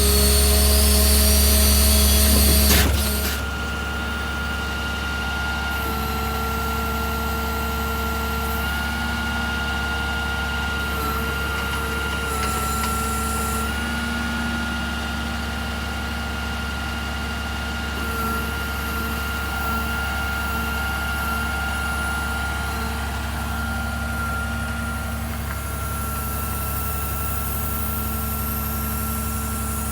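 Peterbilt 330 truck's diesel engine running steadily with a constant high whine over it, after a loud hiss that stops about three seconds in.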